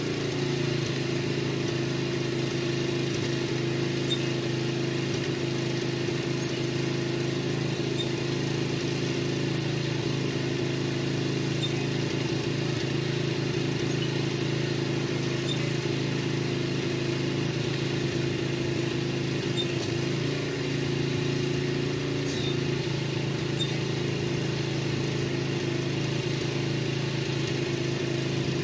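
A small motor running steadily at a constant speed, giving an even, unchanging hum.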